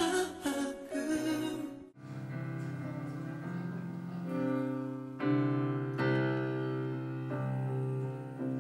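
A live recording of male voices singing a pop ballad with band and choir cuts off about two seconds in; slow, sustained keyboard chords follow, a new chord every second or so.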